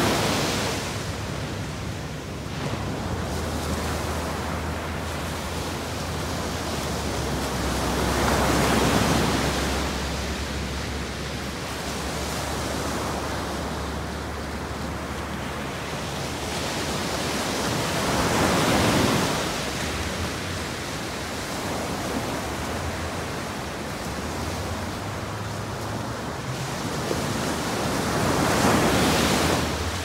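Ocean surf breaking on the beach: a steady wash that swells with each wave, about every ten seconds, over a faint low rumble.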